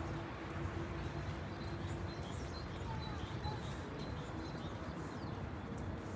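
Winter city street ambience: a steady low hum of traffic with faint footsteps crunching on snow, and a short chirp about three seconds in.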